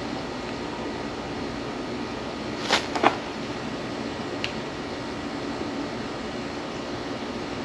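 Steady background hum and hiss, with two sharp taps close together about three seconds in and a fainter tick a second later.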